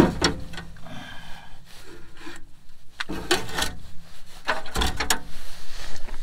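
A car battery being pushed into a rusty steel battery tray under a truck, scraping and knocking against the metal a few times: near the start, about three seconds in, and about five seconds in.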